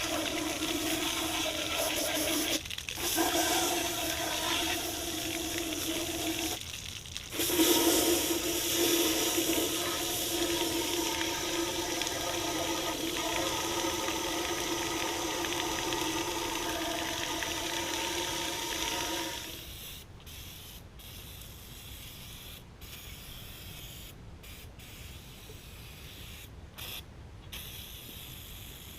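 Water spraying hard through the cooling jackets of a bare cast-iron Ford FE V8 engine block to flush out crud: a steady hiss of spray with a pitched hum, cut off briefly twice. It stops about two-thirds of the way through, leaving quieter splashing and dripping.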